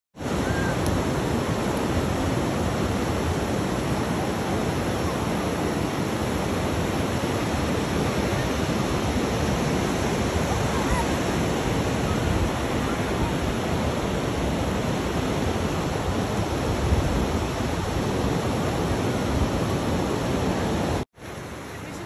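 Ocean surf breaking on a sandy beach: a steady, even rush of waves. Near the end it cuts off for a moment and comes back quieter.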